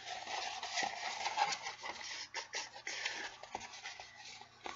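Rolled paper poster print being unrolled by hand: crisp paper rustling and crackling with many small sharp crinkles, thinning out after about three seconds.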